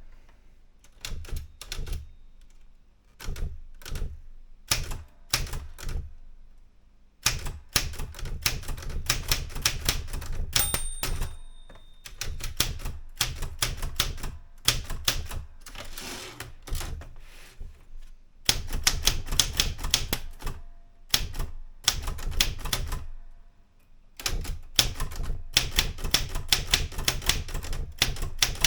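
Erika 105 manual typewriter being typed on: quick runs of sharp key strikes in bursts, with short pauses between them. One brief ringing tone comes about ten seconds in.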